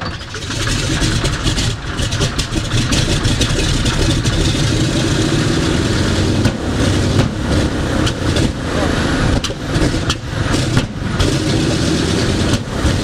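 A Douglas C-47 Dakota's Pratt & Whitney R-1830 Twin Wasp radial engine starting: it catches right at the start, picks up over the first second and then runs unevenly, with brief dips in its beat.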